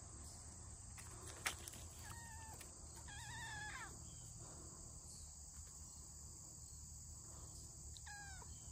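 Steady high-pitched insect chorus in woodland, with a sharp click about one and a half seconds in and a few short, faint calls.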